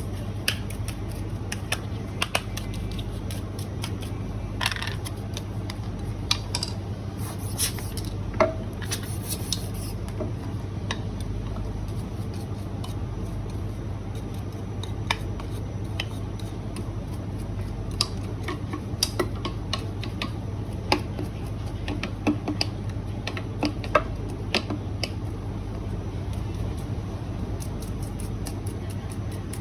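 Scattered light clicks and clinks of small metal parts of a Eureka coffee grinder being handled and set down during cleaning, over a steady low hum.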